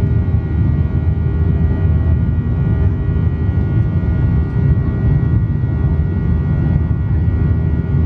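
Jet airliner cabin noise during the climb after takeoff: a steady loud rumble from the engines and airflow, with several steady whining tones above it.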